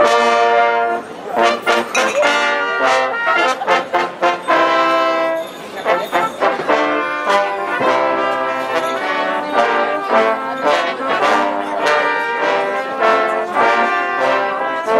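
A small brass band of trumpets and trombones playing a lively tune, several instruments sounding chords together in short rhythmic phrases, starting abruptly right at the beginning.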